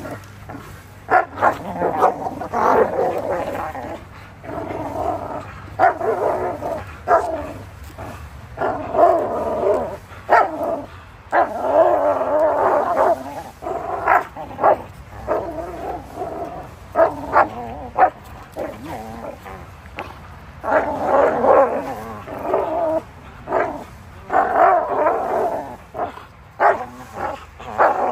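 Two Belgian Malinois growling and barking in repeated bursts, with yips, as they leap and tug on a hanging rope toy.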